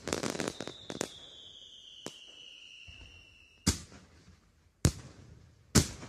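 Fireworks: a burst of crackling at the start, then a whistle that slowly falls in pitch for about three seconds and ends in a sharp bang. Two more sharp bangs follow about a second apart.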